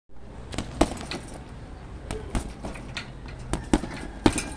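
Boxing gloves hitting a hanging heavy punching bag: a series of sharp thuds at irregular intervals, the loudest about a second in and near the end.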